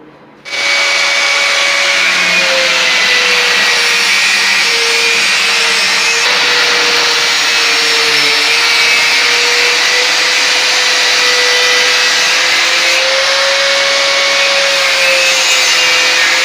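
Handheld electric power tool running continuously at full speed, most likely for cutting. It starts about half a second in, with a steady motor whine that wavers slightly in pitch.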